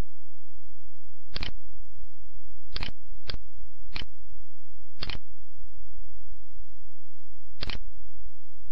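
Computer mouse button clicking six times at uneven intervals, single sharp clicks with two close together about three seconds in. Under the clicks runs a steady low hum.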